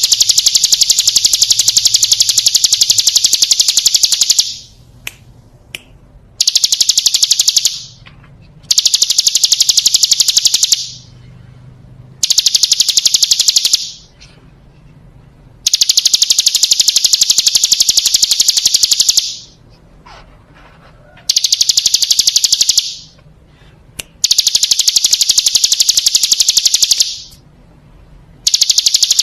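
Ciblek gunung (a prinia) song: a loud, rapid, high buzzing trill, given in about eight bouts of one to four seconds with short pauses between them.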